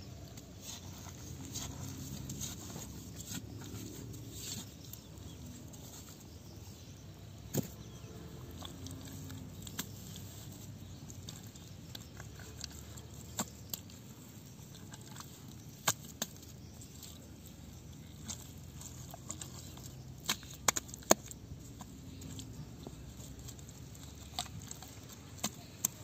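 Hands digging and scooping wet mud out of a hole, with scattered short sharp clicks and pats over a steady low background noise.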